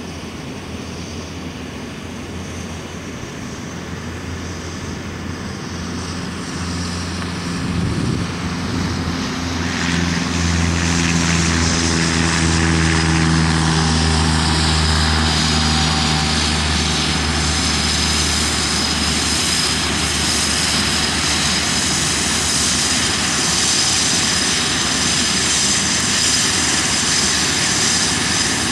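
Cessna 152's four-cylinder Lycoming engine and propeller at full takeoff power. It grows louder over the first dozen seconds as the aircraft rolls and lifts off close by, then stays loud as it climbs away.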